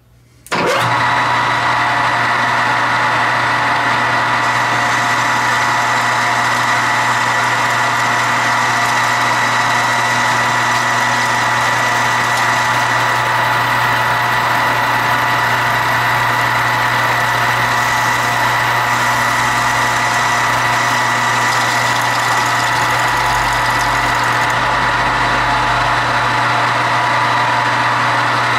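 Metal lathe switched on about half a second in, then running steadily under a roughing cut across the face of the part, its motor and gearing giving a constant hum with a high whine.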